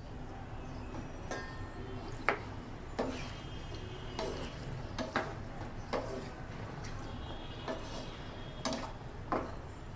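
Pumpkin pieces being stirred in a frying pan of simmering water and oil: irregular light clicks and knocks of the utensil against the pan, roughly one a second, over a low steady hum.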